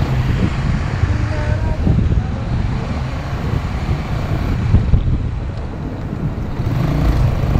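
Wind buffeting the microphone on a moving motorcycle, over a steady low rumble of engine and road noise.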